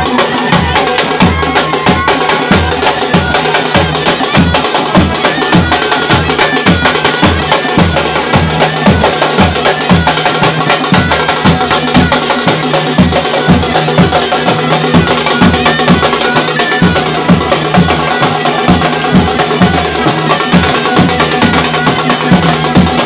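Procession music of drums beating a steady, fast rhythm with sharp clacking strokes, under a reed-pipe melody, typical of Konkan Shimga palkhi music.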